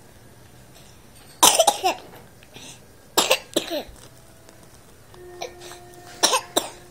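A baby coughing in three short bouts, each of two or three coughs, with a soft held coo shortly before the last bout.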